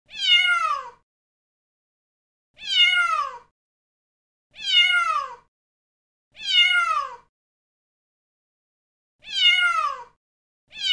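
A domestic cat meowing, the same falling-pitched meow about a second long, heard five times with uneven gaps, a sixth beginning right at the end.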